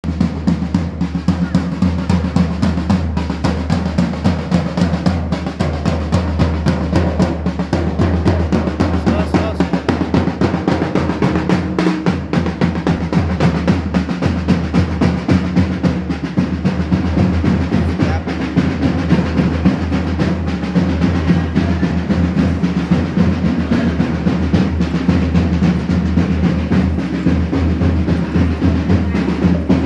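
Fast, dense drumming on a large hand-held barrel drum, beating on without a break.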